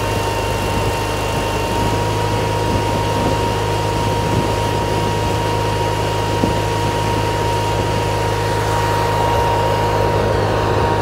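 Portable generator engine running steadily, a constant hum with a thin steady whine above it, growing a little louder near the end.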